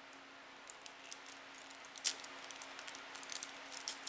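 Thin clear plastic wrapping crinkling and crackling as it is peeled by hand off a small PVC statue part. Scattered light crackles grow busier about two seconds in, over a faint steady hum.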